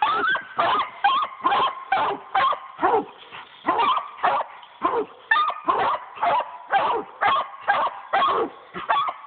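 Hunting dog standing up against a tree trunk and barking treed: a steady, unbroken string of loud barks, about two a second. It is the tree bark that tells the hunter the dog has its quarry up that tree.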